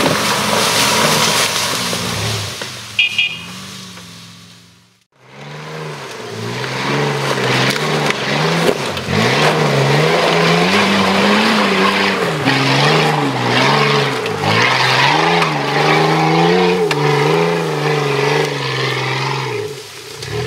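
An off-road 4x4's engine working hard under load on a climb, its revs swinging up and down over and over. The sound fades and drops out about five seconds in, then the revving engine carries on.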